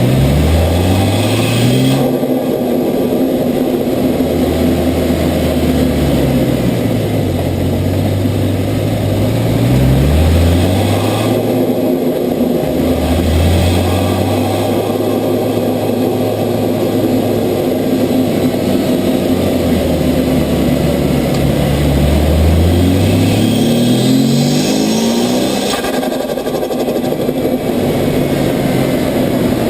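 Ford Falcon F6 Typhoon's turbocharged 4.0-litre inline-six, heard from the engine bay, revved several times with its pitch rising and falling. The blow-off valve has been removed, so the turbo flutters (compressor surge) when the throttle is lifted.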